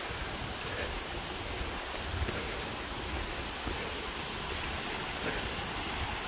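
Steady rushing of a rocky mountain stream and its small cascades, with irregular low rumbles and a few faint knocks from the walking, handheld phone.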